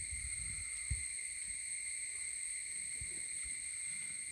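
Faint, steady high-pitched drone of insects, with a soft low thump about a second in and another near three seconds.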